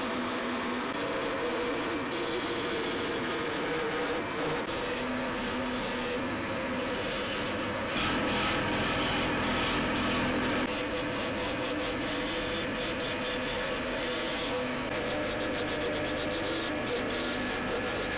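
Power tool running steadily while an abrasive rubs against a workpiece, sanding with short scratchy strokes, louder for a few seconds about eight seconds in.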